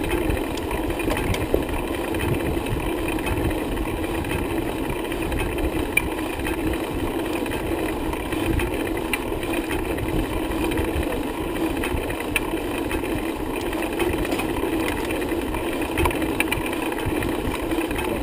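Riding noise from a bicycle on the road: wind buffets the microphone over a steady hum.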